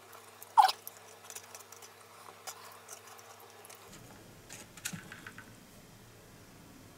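Wooden chopsticks clicking and scraping against a thin bentwood ekiben box, sped up, with a sharp squeaky click about half a second in. Near five seconds a few light clicks as the chopsticks are laid down on the box, then only faint room tone.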